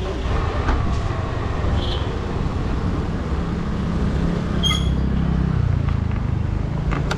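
Small scooter engine running under way while it is ridden, with low rumble; the engine note rises and then eases off in the second half. A short high beep sounds about two-thirds of the way through.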